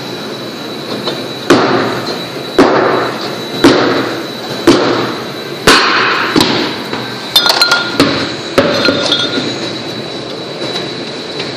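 Hammer striking metal on a car's brake assembly: five hard blows about a second apart, then a run of lighter metallic clinks.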